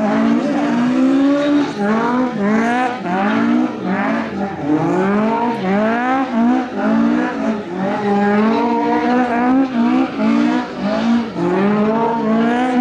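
Rally car engine revving hard, its pitch climbing steeply and falling back again and again in quick succession.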